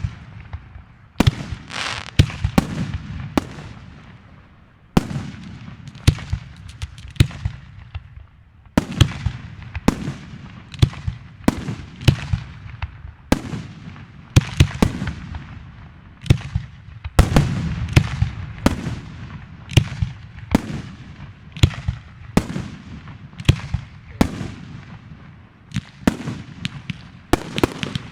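Aerial fireworks going off in a steady barrage: repeated sharp bangs, roughly one or two a second, each followed by a rumbling echo and crackle.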